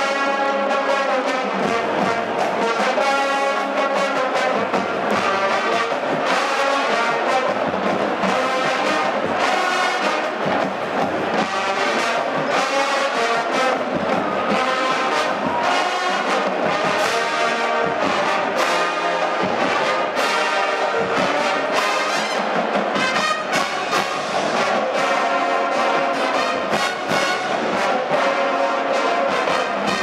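Marching band playing a brass-led piece, full sustained chords from trombones and trumpets over steady drum hits.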